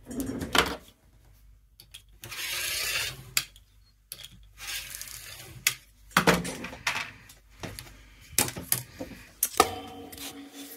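Handling sounds as a rotary cutter and cut fabric pieces are moved about on a wooden tabletop: a run of sharp clicks and knocks, with a brief rustle about two seconds in.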